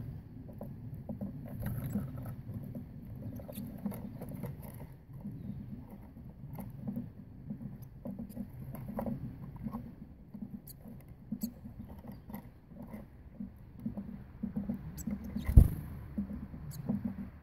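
Blue tits and great tits pecking and hopping on a wooden bird table among loose peanuts and seeds: a run of light taps, clicks and scratches, with one loud thump near the end.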